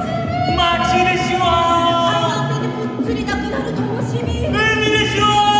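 A group of men and women singing a song together, holding long notes with vibrato.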